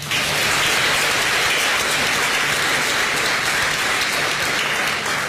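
A large seated audience applauding: dense, steady clapping that starts suddenly and eases off a little near the end.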